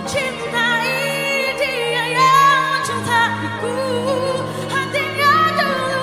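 Female vocals sing a slow pop ballad in Indonesian, with a wavering vibrato, over held instrumental accompaniment.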